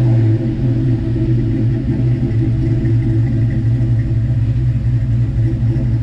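Cammed Ford 4.6-litre 2-valve V8 of a New Edge Mustang GT idling, heard at the exhaust tip. The idle is uneven, rising and falling, and it settles down from a rev just after the start.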